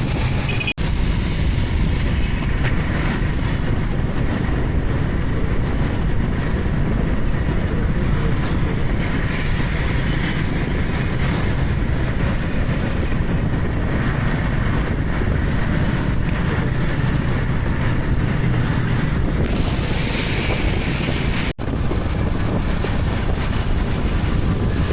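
Steady rush of wind buffeting the microphone, mixed with road and engine noise from riding through city traffic. The sound drops out briefly twice, about a second in and near the end.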